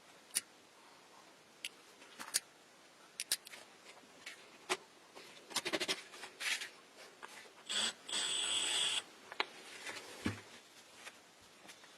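Small clicks, taps and scrapes of parts being handled, with a brief run of a small high-pitched motor lasting about a second, roughly two-thirds of the way through.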